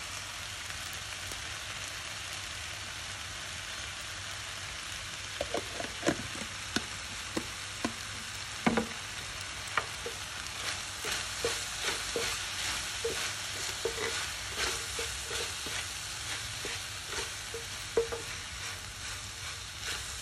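Lamb strips and sliced red onion sizzling on a ribbed grill plate. From about five seconds in, a wooden spatula knocks and scrapes against the plate as the meat is stirred, the knocks growing busier over the last half.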